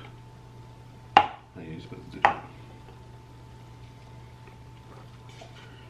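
Two short, sharp taps about a second apart as paper cups are knocked together in a toast, over a faint steady room hum.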